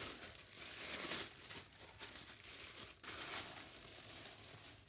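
Paper wrapping of a package rustling and crinkling in hands as it is unwrapped, in uneven bursts, strongest in the first second and again about three seconds in.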